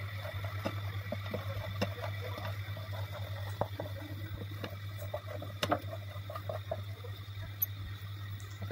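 Spatula stirring and scraping a thick mixture of ground paneer and condensed milk round a kadai: soft wet squishing with irregular clicks and scrapes of the spatula on the pan, and one sharper knock a little past halfway, over a steady low hum.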